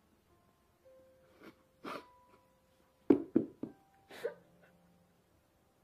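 A woman sobbing and crying: about six short, catching sobs, the loudest a quick run of them about three seconds in.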